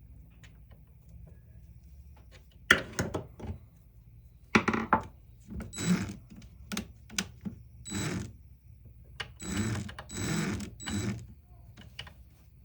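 Metal tool parts and tools being handled during disassembly: a string of sharp clinks and knocks, each with a short rattle, starting about three seconds in and recurring irregularly, loudest around the middle.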